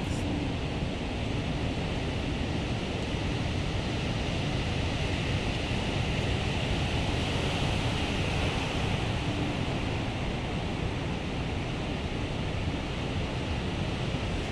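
Ocean surf breaking and washing ashore in a steady rush, swelling a little louder around the middle. Wind rumbles on the microphone underneath.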